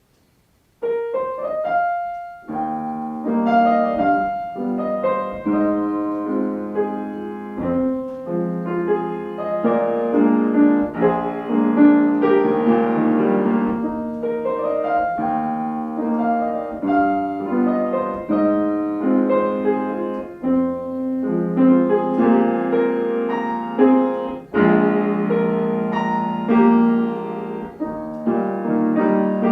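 Piano being played: a short rising run of notes about a second in, then a steady melody over chords.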